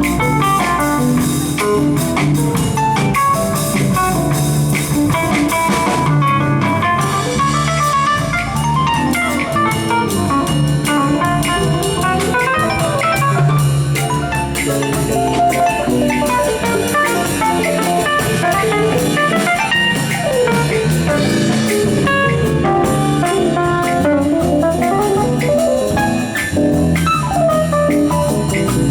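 A band playing a jazz-blues instrumental passage, with guitar over a drum kit. The guitar has some bent notes.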